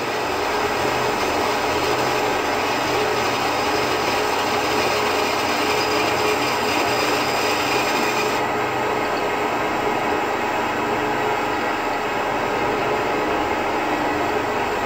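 Small benchtop bandsaw running steadily while cutting through block board. The higher hiss drops away abruptly a little over halfway through.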